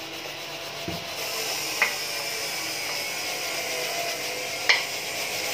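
Brush scrubbing across a CNC-engraved wooden board to clear away the fuzzy fibres left by the cut: a steady scratchy rubbing, with a low thump about a second in and sharp clicks about two seconds in and near the end.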